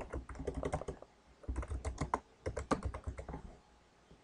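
Typing on a computer keyboard: two quick runs of keystrokes, the first about a second long and the second about two seconds, then the typing stops.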